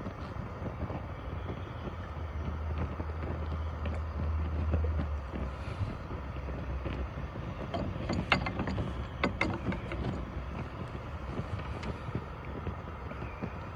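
Steady outdoor background noise with wind on the microphone. About eight to nine and a half seconds in come a few sharp clicks and knocks as a beer glass is set back into a wooden holder.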